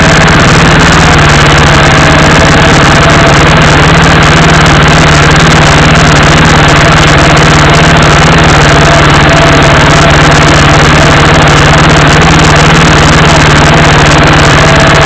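Off-road vehicle's engine idling, loud and steady.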